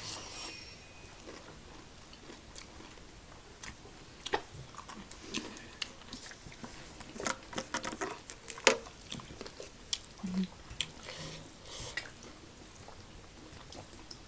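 Close-miked eating of fried chicken pieces: irregular chewing and biting with scattered crunches and clicks.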